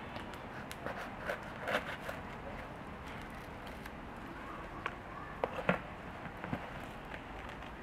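Crusty baguette crust crackling and cracking as it is cut with a knife and broken apart by hand, in scattered short crisp cracks: a cluster about a second in and another past the middle, over a steady background hiss.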